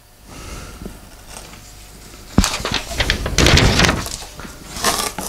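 Paper and packing paper rustling and crinkling as it is handled and pulled from a cardboard box, quiet at first, then a sudden sharp rustle about two and a half seconds in and louder, irregular crinkling after.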